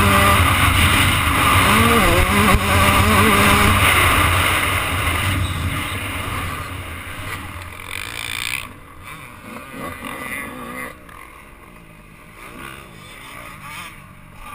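Dirt bike engine running under throttle and revving, with wind rushing over the bike-mounted microphone, then easing off and quieting over the second half as the bike slows to a stop.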